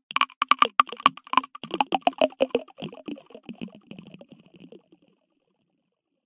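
A rapid, uneven run of sharp clicks and taps with a slight ring, growing fainter and stopping about five seconds in.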